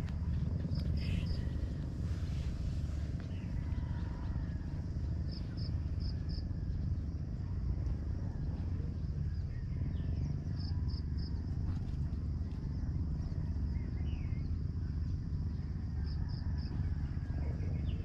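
Wind buffeting the microphone as a steady low rumble. Through it a small creature gives a short run of three or four quick high chirps about every five seconds, four times.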